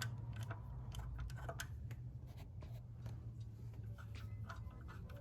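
Faint, irregular metallic clicks, two or three a second, as loosened cylinder head bolts are turned out of a BMW E46 engine, over a steady low hum.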